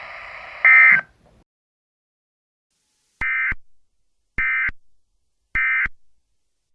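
Weather radio static with a loud, short burst of EAS digital data tones, cutting off about a second in; then three identical short bursts of the warbling EAS data signal about a second apart: the End Of Message (NNNN) code that closes an Emergency Alert System warning.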